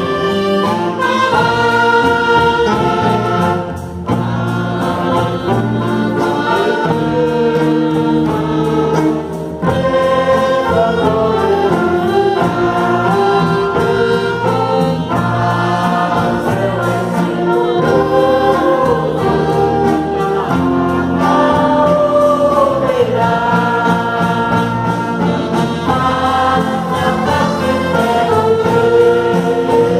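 An orchestra with brass accompanying a choir singing a hymn, with full, sustained chords throughout.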